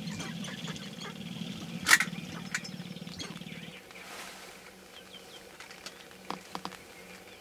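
Sharp-tailed grouse on a dancing ground: scattered short clucking and cackling calls over a low steady hum that stops nearly four seconds in, with one loud sharp call about two seconds in.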